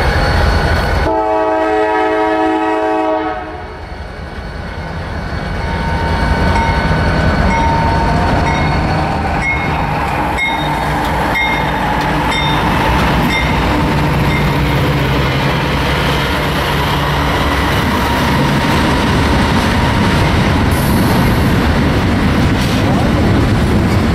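A freight train horn sounds one long steady blast of several tones near the start. Then CSX diesel locomotives pass close by, followed by a double-stack intermodal container train, with engine drone and wheels clattering steadily over the rails.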